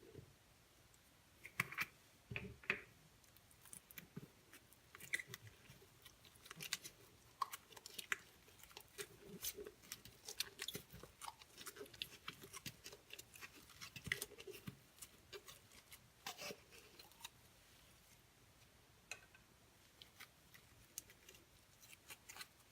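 Slime being squeezed, stretched and pressed by hand, giving faint irregular sticky clicks and pops that thin out near the end.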